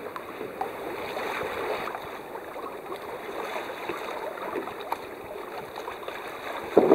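Water rushing and splashing along the hull of a Grampian 26 sailboat under sail: a steady wash with a few light ticks.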